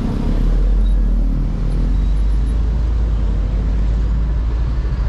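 Road traffic on a wide city avenue: buses, cars and motorcycles going by, with a steady deep rumble.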